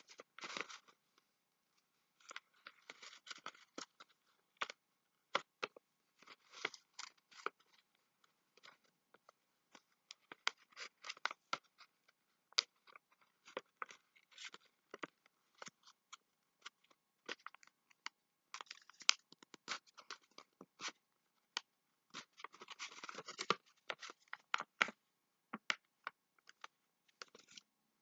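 Paper being folded and creased by hand into an origami box: a run of short crackles and scrapes as the folds are pressed down against a paper pad, with a denser stretch of rustling near the end.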